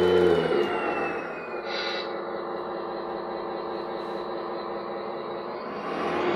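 Electronic engine-sound module of an RC Scania S730 truck model playing a simulated diesel truck engine through its small speaker: revved at first, with a high turbo whistle falling away, a brief hiss about two seconds in, then settling to idle before revving up again near the end.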